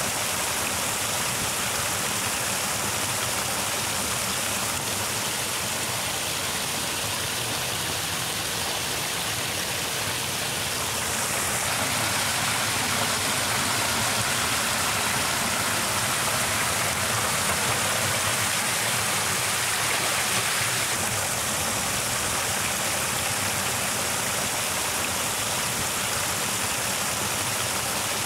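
Muddy water pouring in thin streams over the edge of a dug earth pit and splashing into the pooled water below: a steady rush of falling water. It grows a little louder and brighter for about ten seconds in the middle.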